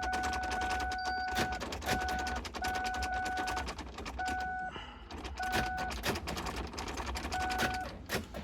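Ignition key jiggled rapidly in the 2000 Mustang's ignition switch: keys jangling and clicking fast, while a steady warning-chime tone cuts in and out irregularly as the switch makes and breaks contact. This shaking, halfway between off and on, is the workaround for the car's intermittent electrical no-start fault.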